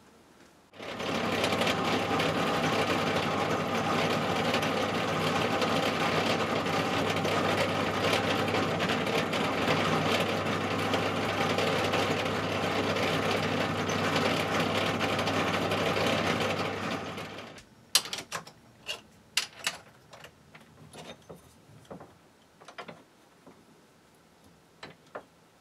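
Bench pillar drill running steadily while drilling 4.2 mm tapping holes, starting about a second in and stopping about 17 seconds in. Afterwards, light metallic clicks and taps as the part and tools are handled.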